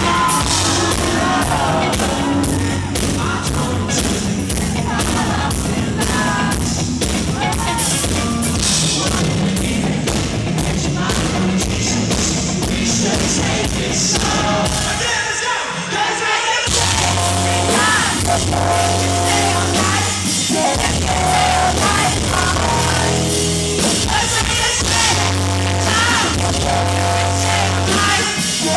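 Live rock band playing loud, heard from the audience: electric guitar, drums and singing. The bass and drums drop out briefly about halfway through, then the full band comes back in.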